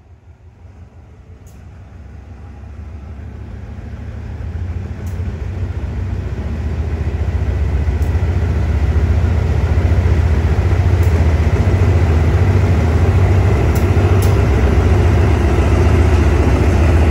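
Diesel locomotive hauling an express passenger train pulling out of a station, its engine drone growing steadily louder over the first ten seconds as it draws near, then staying loud.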